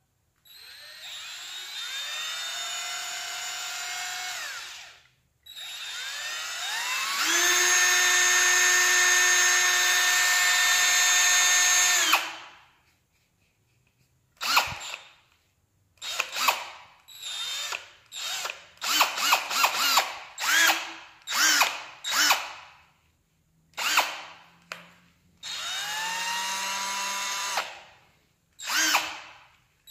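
A 20V cordless drill/driver running free with an empty chuck, its motor and gearbox whining and winding up in pitch each time the trigger is pulled. First a steady run of about four seconds, then a louder, higher run of about seven seconds, then a string of short trigger blips, and a few seconds of steady running near the end.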